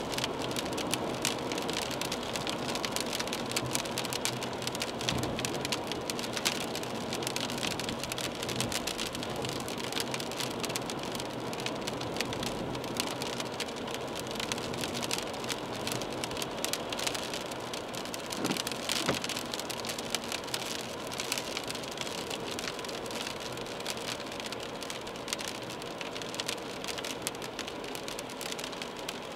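Rain hitting the windscreen and body of a moving BMW 320d, heard from inside the cabin as a dense, steady spatter of small drop impacts over the car's constant driving noise on the wet road.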